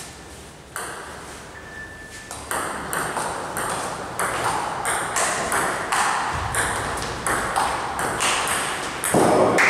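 Table tennis rally: a celluloid-type ball clicks off paddles and the table about twice a second. Near the end a louder rush of noise rises over the clicks.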